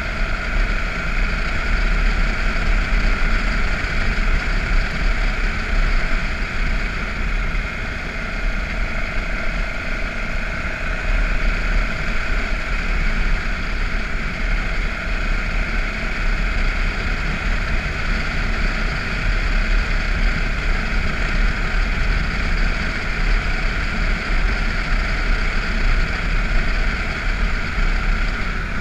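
BMW F650GS motorcycle riding steadily along a gravel road, its engine running under a constant rush of wind on the microphone.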